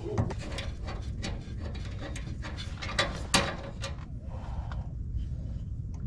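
Hand tools and parts being handled during a repair: a run of irregular ratchet-like clicks and rattles, with two sharper clicks about three seconds in, then quieter handling noise.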